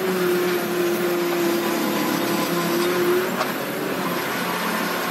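Case 580 Super R backhoe loader's diesel engine running under load while the backhoe digs. A steady whine runs over the engine and stops about three seconds in, followed by a single short click.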